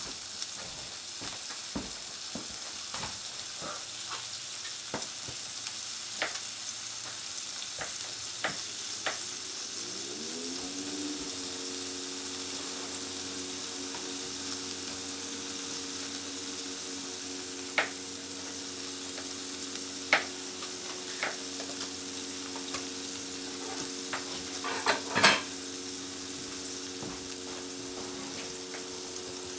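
Burgers sizzling as they fry in a pan on a gas hob, with scattered clicks and knocks and a louder clatter near the end. About a third of the way in, a steady hum starts, sliding up in pitch before holding level.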